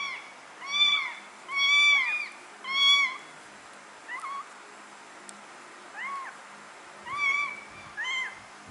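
Newborn kitten mewing in a string of short high-pitched cries, each rising and falling in pitch, with a lull around the middle.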